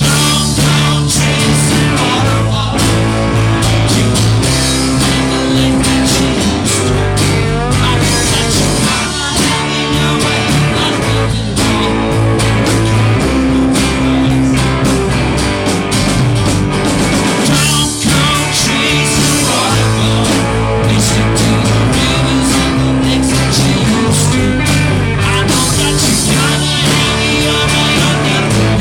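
Live rock band playing loud, with guitars, bass and drum kit keeping a steady beat; the full band comes in right at the start.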